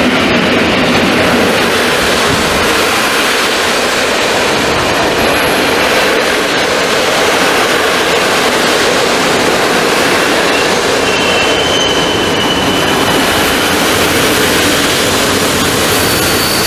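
Passenger coaches of an InterCity train rolling past at close range: a loud, steady rumble of wheels on rail, with a brief high squeal about eleven seconds in.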